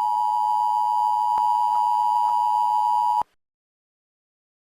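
Emergency Alert System attention tone: a steady, loud electronic tone held for about three seconds that then cuts off abruptly.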